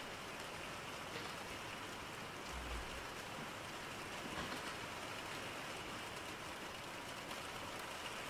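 A steady, even hiss with a soft low thump about two and a half seconds in.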